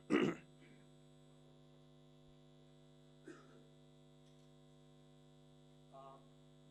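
Steady electrical mains hum, a low buzz made of several even tones, with a short loud voice-like sound right at the start and faint brief murmurs about three and six seconds in.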